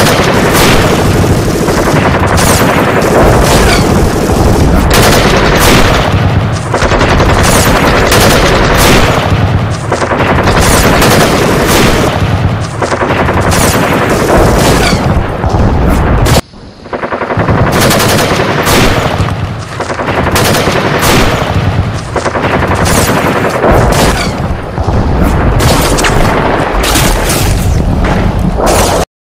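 Heavy, continuous machine-gun fire and gunshots, a dubbed sound-effects battle track with many overlapping shots. It breaks off for a moment about 16 seconds in, then resumes until it cuts off suddenly near the end.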